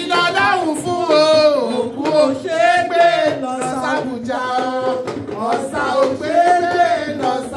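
Singing with long, bending held notes over band music.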